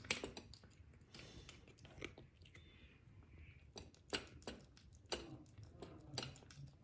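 Kitten eating wet cat food from a stainless steel bowl: faint chewing with irregular small clicks.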